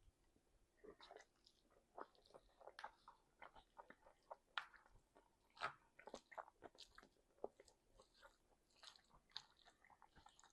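A person faintly chewing and biting a mouthful of meat and guacamole, a run of irregular short clicks and smacks.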